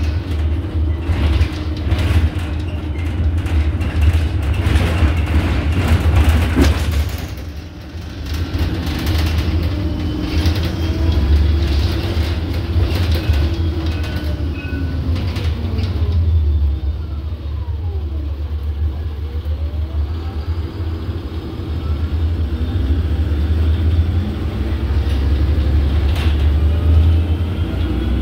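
Interior ride noise of an Iveco Urbanway city bus: a steady low drivetrain and road rumble with rattles and creaks from the cabin fittings. Around two-thirds through, a whine falls and then rises again in pitch.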